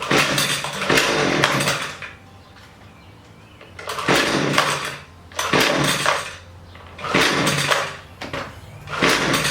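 Husqvarna 128LD string trimmer's two-stroke engine running, revved five times with the throttle, each burst lasting about one to two seconds before it drops back. It bogs down each time the throttle is opened, a sign of a carburetor mixture that needs adjusting.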